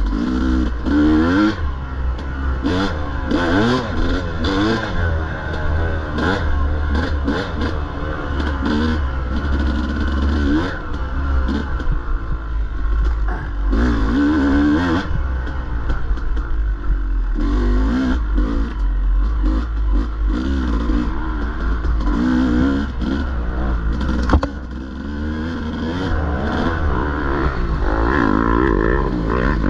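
Dirt bike engine revving up and down as the throttle is worked hard, with clattering from the bike. A sharp knock comes late on, after which the engine note drops briefly and then builds again.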